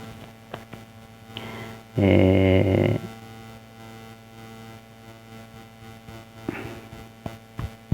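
A man's voice holding a single steady hesitation sound for about a second, a few seconds in, over a constant electrical hum. There are a few faint ticks elsewhere.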